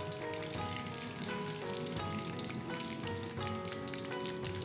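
Batter-coated prawns deep-frying in hot oil in a wok, a steady crackling sizzle, over background music of held notes.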